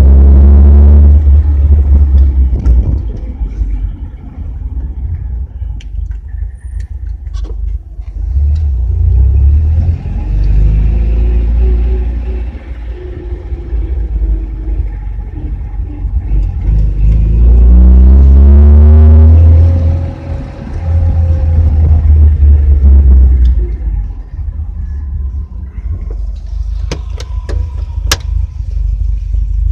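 Car engine and road noise heard from inside the cabin, with a heavy low rumble. Twice the engine note rises as the car accelerates. A few sharp clicks come near the end.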